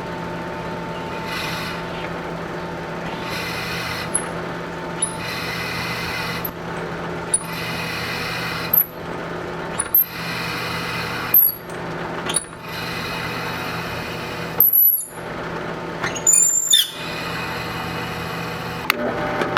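Belt grinder running steadily, with steel pressed to the belt in about seven separate grinding passes of a second or two each, lifted off between passes.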